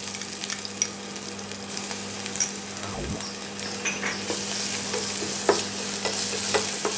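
Small onions and whole spices sizzling in hot oil in a stainless steel pressure cooker while they are sautéed soft, with a wooden spatula scraping and tapping against the pot. The sizzle grows stronger about four seconds in.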